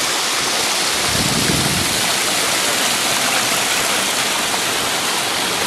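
Water cascading down a rock face in a small forest waterfall, a steady loud rush.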